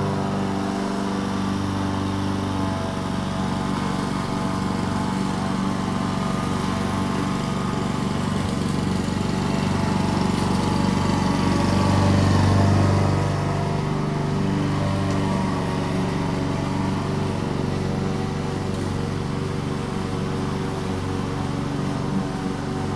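Petrol lawn mower engine running steadily while cutting grass. It grows louder about halfway through as the mower passes closest, then eases back.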